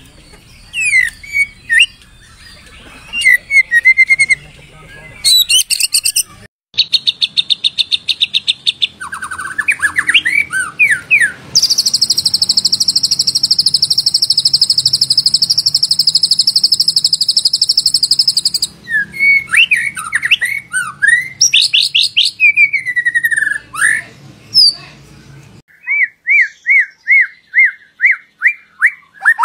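White-rumped shama (murai batu) singing a varied song of loud whistled phrases that sweep up and down. A long, very high, fast trill runs for about six seconds in the middle, and near the end comes a run of repeated notes, about three a second.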